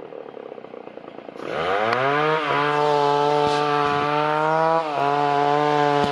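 Chainsaw engine ticking over at idle, then revved up sharply about a second and a half in and held at high speed, its pitch dipping briefly twice. It is the saw at work felling trees in the cloud forest.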